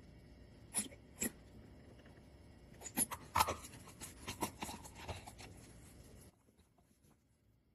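Sharp plastic clicks and knocks as the Soap Daddy dispenser's plastic top is fitted and pressed onto the filled soap bottle. Two single clicks come about a second in, and a quick cluster follows from about three to five seconds in.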